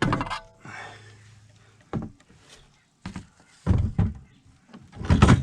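A series of separate knocks and thumps of hard objects being handled and set down, with a short scraping rustle about half a second in and the loudest knock near the end.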